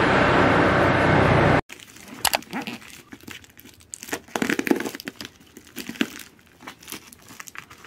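Plastic parcel wrapping and packing tape crinkling and crackling in irregular bursts, with sharp little snips and clicks as the package is cut open. It starts about one and a half seconds in, after loud traffic noise that cuts off abruptly.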